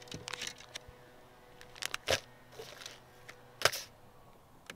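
Plastic lure packaging crinkling as it is handled, in a few short rustles, the loudest about three and a half seconds in.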